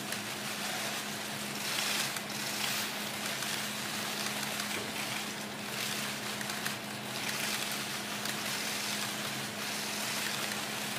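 Theatre audience applauding: dense, steady clapping that swells and eases every second or so, over a faint steady low hum.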